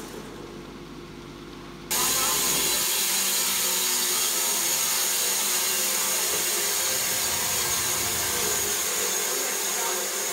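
Wood-Mizer LT15 band sawmill sawing an oak log: a loud, steady sawing noise with a thin high whine, cutting in abruptly about two seconds in after a quieter low hum.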